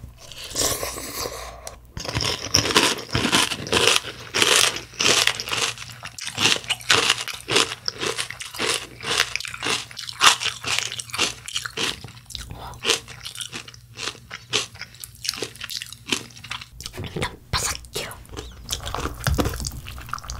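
Close-miked chewing of crispy flake cereal in milk: a fast run of crunches, starting about two seconds in and going on, several to the second.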